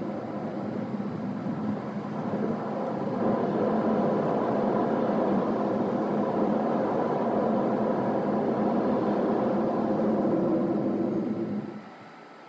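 Driving noise from a car: a steady drone of road and engine noise that drops sharply to a much quieter hum near the end.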